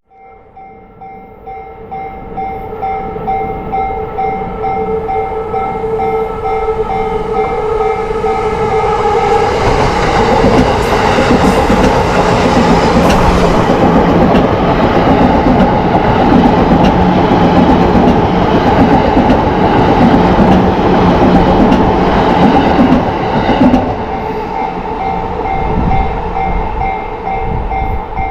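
Yamanote Line level-crossing warning bell ringing steadily. A train comes up over several seconds, passes the crossing loudly for about a quarter of a minute, then falls away near the end while the bell keeps ringing.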